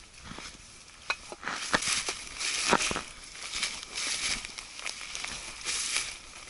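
Footsteps through dry leaf litter and tall ferns and weeds: leaves and stems rustling against legs and clothing, with irregular crackles and snaps underfoot.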